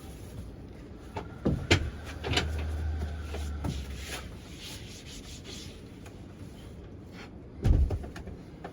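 Large wooden bed boards being shifted and handled: rubbing and scraping with a few knocks, and one heavy thump near the end.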